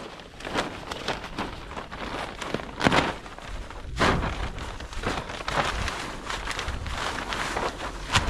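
Heavy black silage plastic sheeting being pulled and handled, crackling and rustling in irregular bursts, the loudest about three and four seconds in.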